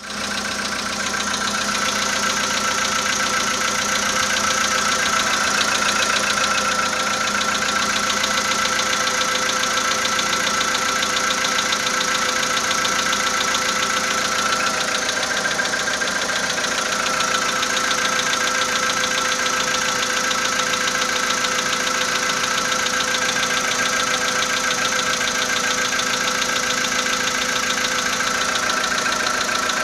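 Volkswagen Polo Sedan engine idling with a steady, rapid knock.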